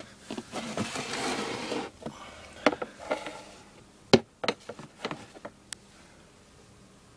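Plastic snake tubs being handled in a reptile rack: rubbing and scraping for about two seconds, then a scatter of sharp clicks and knocks, the loudest a little past halfway.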